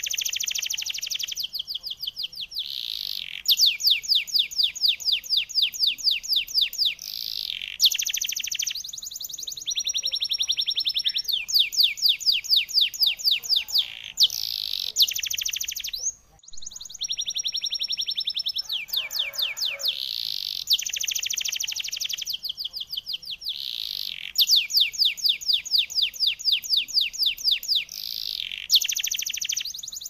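Domestic canary in full song: long, high-pitched runs of rapid trills and rolls, phrase after phrase with barely a pause, broken by one short gap about halfway through.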